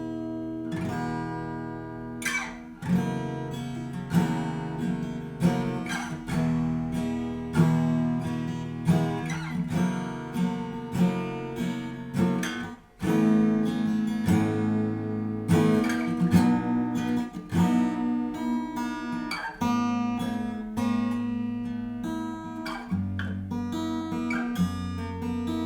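Yamaha FG850 solid-mahogany dreadnought acoustic guitar being played: chords strummed, with single picked notes ringing between them, in a very warm tone. The playing breaks off for a moment about halfway through, then carries on.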